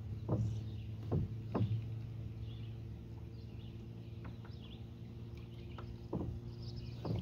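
Minn Kota 30 lb-thrust electric trolling motor running with a steady hum, with a few short knocks against the kayak and faint bird chirps.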